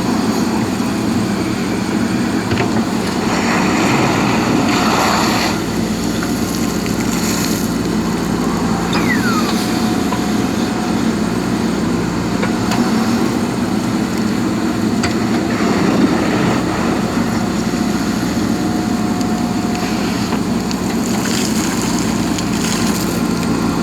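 Diesel engine of a JCB backhoe loader running steadily, with two louder, noisier spells, a few seconds in and near the end.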